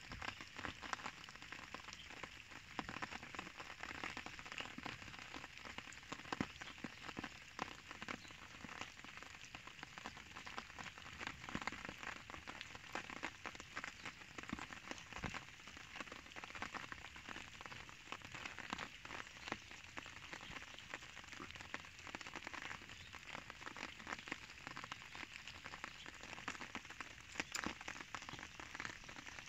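Steady patter of light rain: a dense, unbroken run of small ticks.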